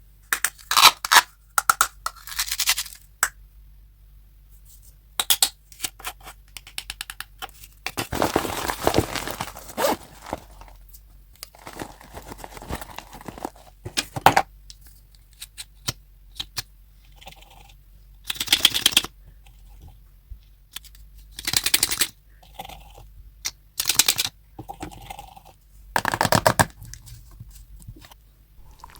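Slime being squeezed and stretched by hand, making bursts of sticky crackling and popping with short pauses between them.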